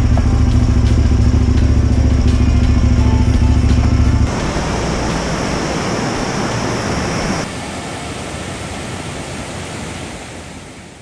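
Motorcycle engine and wind rumble while riding, loud and steady for about four seconds, then a sudden change to the steady rush of river rapids, which fades out near the end.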